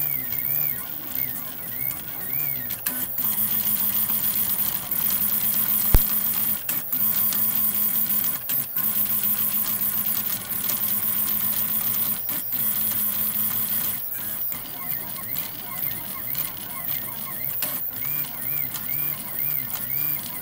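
FDM 3D printer running mid-print: its stepper motors whine in warbling, rising and falling tones as the print head moves, with a steadier hum through the middle stretch, over a steady high hiss. A single sharp click comes about six seconds in.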